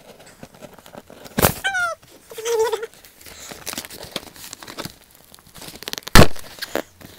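Packing tape being peeled and torn off a cardboard shipping box, with the cardboard flaps crinkling and rustling in irregular crackles. Two loud sharp tearing sounds stand out, one about a second and a half in and the loudest about six seconds in.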